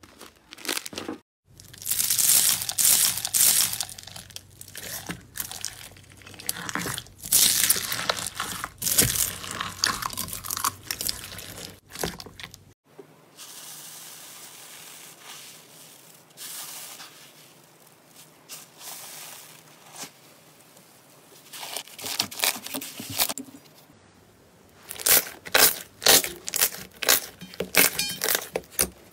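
Hands squeezing, pressing and kneading slime in bowls: wet crackling and sticky tearing, softer and quieter in the middle, then a quick run of sharp pops and clicks near the end.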